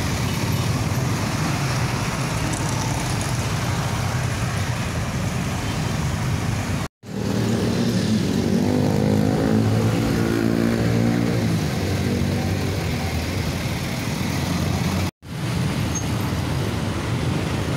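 Dense stop-and-go road traffic: motorcycle, car and truck engines running together. For a few seconds in the middle, the hum of a heavy truck's engine stands out close by. The sound cuts out twice for an instant at edits.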